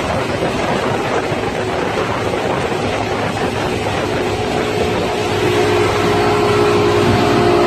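Motorboat engine running at towing speed under a steady rush of wind and wake water; the engine drone grows louder about two-thirds of the way through.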